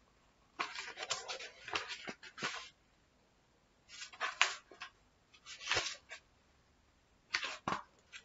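A paperback book handled close to the microphone: pages rustling and turning in four short bursts with quiet gaps between them.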